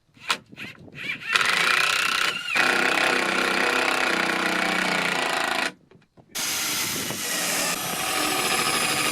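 Power drill running in two long bursts with a short stop between them, driving screws through a wooden deflector strip into the door.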